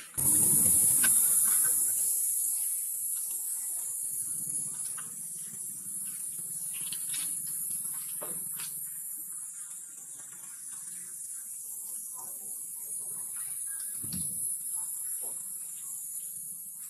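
Steady high-pitched insect chorus that starts abruptly and carries on throughout, with scattered small rustles and taps beneath it and a low thump about fourteen seconds in.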